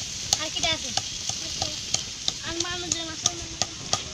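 Food frying in hot oil in a wok over a wood fire: a steady sizzle, with many sharp clicks and scrapes of a metal spatula against the pan as the food is stirred.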